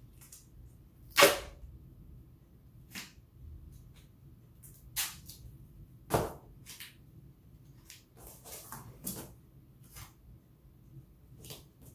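Duct tape being pulled off the roll and torn onto cardboard, with the cardboard handled in between: a series of short, sharp rips and rustles, the loudest about a second in and about six seconds in.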